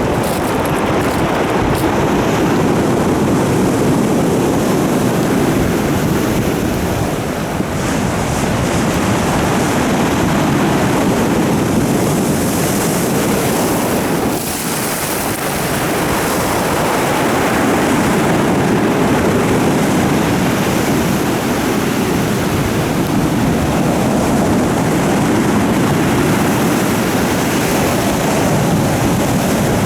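Heavy storm surf breaking on the shore, a dense steady wash that swells and eases, with strong wind buffeting the microphone.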